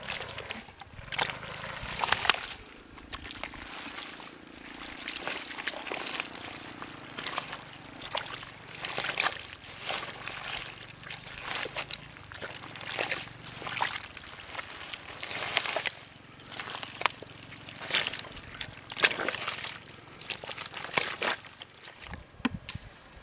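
Hands scooping and churning thick wet mud and muddy water, making irregular squelches, slaps and splashes.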